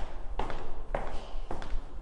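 Footsteps walking along a hallway, about two steps a second, each step a sharp knock.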